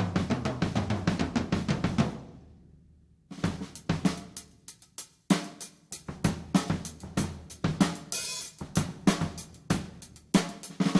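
Undampened mid-70s Ludwig Quadra-Plus melodic tom kit played live: a rapid run of strokes rings out and dies away, then, after a short gap, strokes with kick and snare resume. A brief cymbal wash comes a little past the middle, and fast, dense playing returns near the end.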